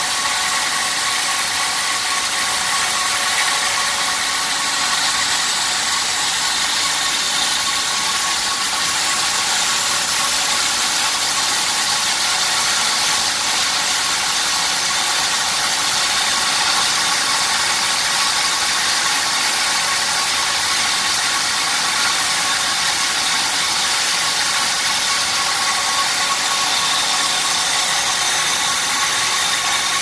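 Diamond wire saw running steadily as its cable cuts through a concrete foundation: an even grinding hiss with a steady high hum.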